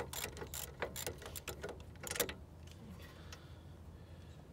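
Quick run of small metallic clicks and ticks from hands working a bolt on a rusty front brake caliper and steering knuckle. It thins out after about two seconds.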